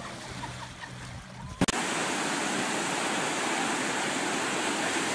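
Steady rush of water pouring over a FlowRider surf-simulator ride. It starts abruptly with a sharp click about a second and a half in, after a quieter stretch.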